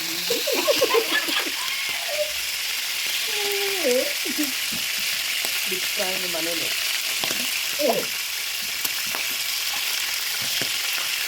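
Cow liver deep-frying in hot cooking oil, which is sizzling violently: a steady hissing fizz with sharp spattering pops.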